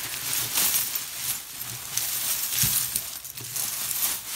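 A pile of metal costume jewelry (chains, necklaces, bracelets) clinking and jingling as a hand stirs through it, with many quick metallic clinks close together.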